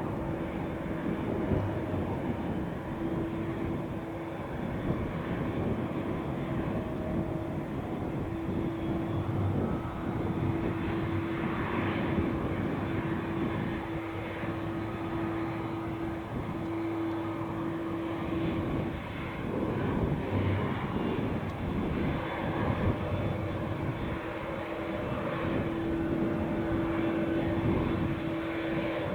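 Airplane engines running with a steady rumble and a droning tone that fades in and out.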